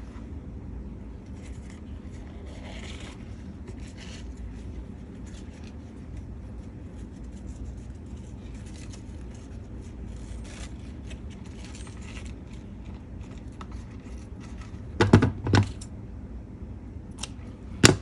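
Paper and craft materials being handled on a tabletop: faint scattered rustles and light ticks over a low steady hum. Two loud knocks come about 15 seconds in, and a sharp click near the end.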